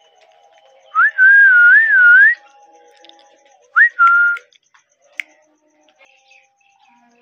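A rose-ringed (Indian ringneck) parakeet whistling. It gives a clear, wavering whistle lasting over a second, then a shorter whistle a couple of seconds later that rises and holds steady.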